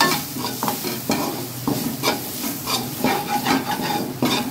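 Metal spatula stirring and scraping an onion-tomato masala around a metal kadai, scrape after scrape about two a second, over the sizzle of the frying oil. The masala is being fried with chilli powder and garam masala that have just been added.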